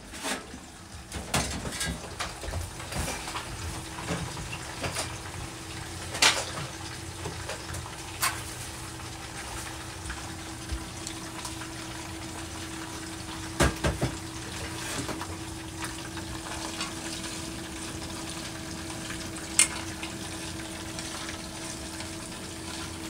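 Water running from a kitchen tap as a tray is washed with a sponge, with a few sharp clinks of dishes and pans over a steady low hum.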